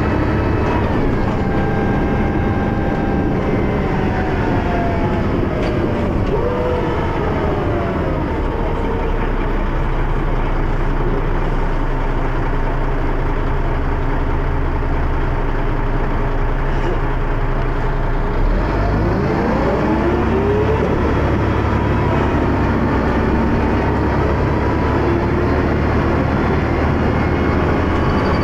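Dennis Arrow double-decker bus running under way: the diesel engine drones steadily while a whine from the ZF automatic gearbox rises and falls twice as the bus speeds up and changes gear. The uploader describes the ZF gearbox as slipping.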